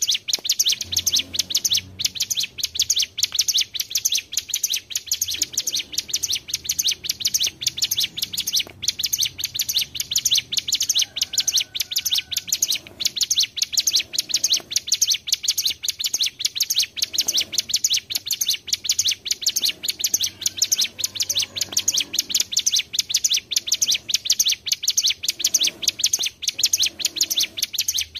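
Ciblek gunung (a prinia) singing a long, unbroken rolling song: a fast run of short, high, sharp notes repeated about four to five times a second without pause.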